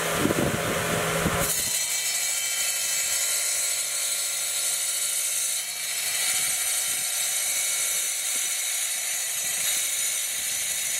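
Wet tile saw running, its diamond blade cutting through a sheet of mesh-backed mosaic tile. The cut starts about a second and a half in as a steady high hiss over the motor.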